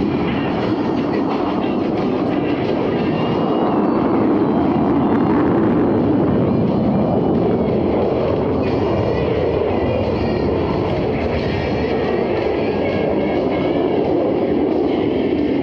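Jet noise from Blue Angels F/A-18 Super Hornets: a steady, loud rush with a high, wavering whine over it.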